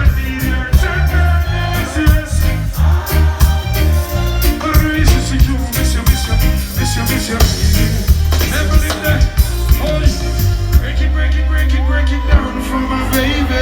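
Live reggae band music over a concert PA: a heavy bass line and steady drum beat, with some singing over the top.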